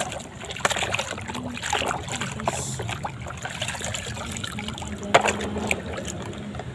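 Plastic toy trucks being sloshed about by hand in a basin of soapy water: splashing, trickling and dripping, with small plastic clicks. A sharp knock about five seconds in.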